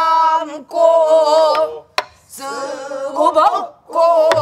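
Men and women singing pansori together in unison, with long, wavering held notes broken by short pauses. A sharp buk drum stroke sounds about two seconds in and another near the end.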